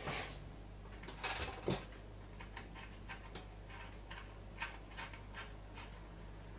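Light clicks and taps of small metal parts being handled as scope rings and their screws are fitted to a rifle scope. A louder cluster of clicks comes about a second in, with scattered single ticks after it.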